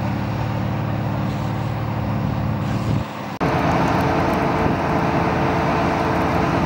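Fire engines' diesel engines running steadily. A little after three seconds the sound briefly drops, then comes back louder and with more hiss.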